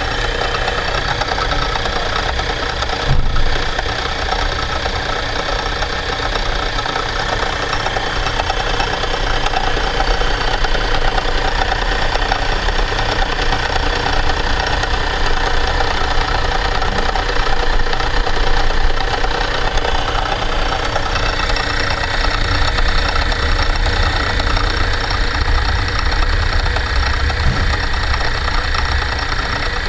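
Homemade valve-face grinding machine running steadily, with a brief knock about three seconds in.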